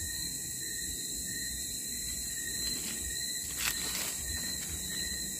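Steady, high-pitched chirring of crickets and other night insects, with a few soft clicks or knocks a little past the middle.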